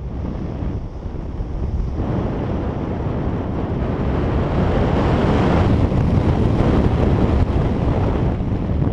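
Wind buffeting the camera's microphone during a tandem parachute descent under an open canopy, a rushing noise that grows louder from about two seconds in and eases slightly near the end.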